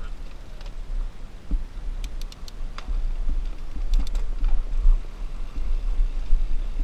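Mountain bike being ridden down a dirt singletrack: a fluctuating low rumble with scattered sharp clicks and rattles, several of them about two seconds in and again about four seconds in.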